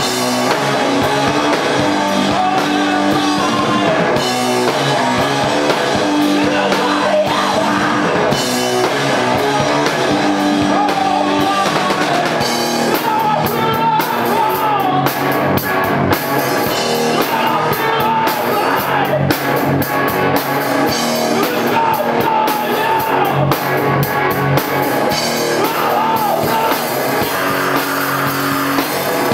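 Rock band playing live: electric guitar and drum kit, with a voice singing over them through much of the second half.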